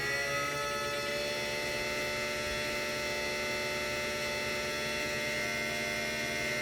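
3D-printed axial-flux brushless DC motor running steadily on an Arduino-based controller, giving a steady electrical hum and whine made of several high and low tones together from the controller's switching and the motor coils. The tones shift slightly at the very start, then hold steady.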